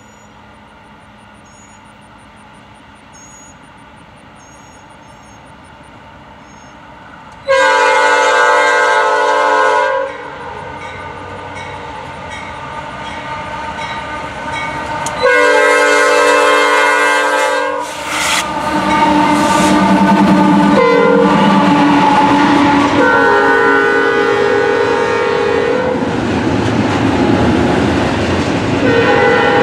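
Norfolk Southern diesel locomotive's air horn sounding its chord in the grade-crossing pattern: two long blasts, a short one and a long one, with another blast starting near the end. From about two-thirds in, the locomotive and the wheels of the double-stack container train rumble and clatter past loudly.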